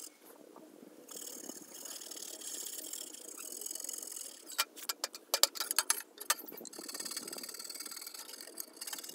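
Toothbrush bristles scrubbing the rusted, embossed metal surface of a money box with a scratchy, rasping brushing. A quick run of sharp clicks and taps comes about five to six seconds in and is the loudest sound.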